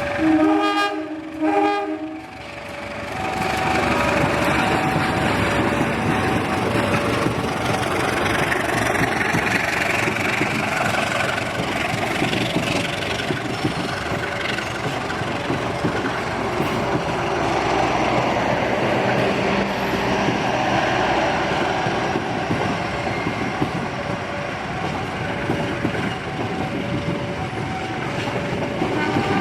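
KA Kamandaka passenger train blowing a loud horn chord for about two seconds at the start, then the train running past: a long, even rush of running noise with wheels clicking over the rail joints.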